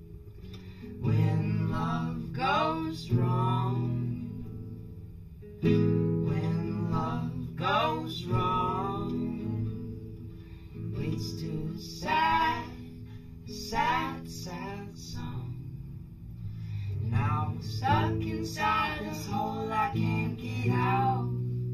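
Acoustic guitar strummed as song accompaniment, with a wavering melody line above it that comes in short phrases separated by brief gaps.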